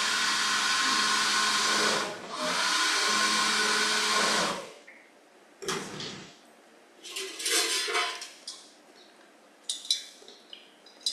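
Small electric blender running, chopping chillies, garlic and lime juice into a thick chilli paste. It drops out briefly about two seconds in, picks up again, then stops after about four and a half seconds. A metal spoon then scrapes and clinks against the blender jar a few times.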